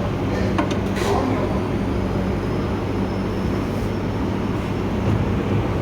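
Steady low hum over even background noise, with a few light clicks within the first second, as of metal brake caliper parts being handled and fitted.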